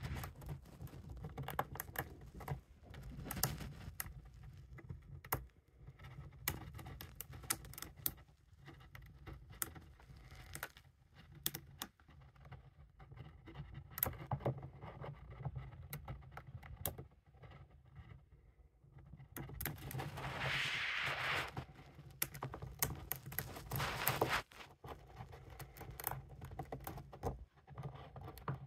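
A hamster gnawing at a peanut in its shell: quick, irregular little crunching clicks of its teeth on the shell. About twenty seconds in comes a louder, drawn-out scraping stretch.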